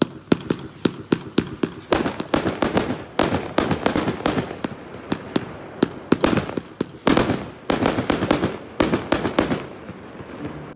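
Fireworks going off: a rapid string of sharp cracks and bangs, several a second, with crackling between them, easing off near the end and cutting off suddenly.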